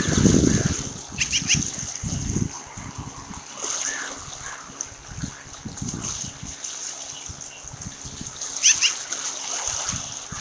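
Two short series of high, sharp osprey chirps, about a second in and again near the end, over low buffeting noise on the microphone and a steady high hiss from the nest cam's garbled audio.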